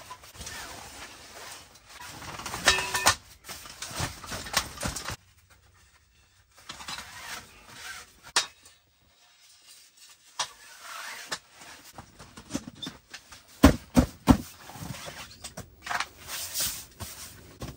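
A Cabela's folding army cot being set up: canvas rustling and the metal frame clicking and knocking as it is unfolded and pressed into place, with a cluster of sharp knocks about two-thirds of the way through.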